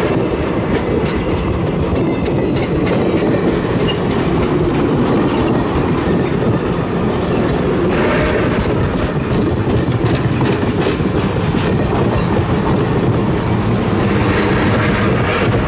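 Streamlined passenger cars rolling past close by: a steady rumble of wheels on the track with repeated clicking as the wheels cross the rail joints.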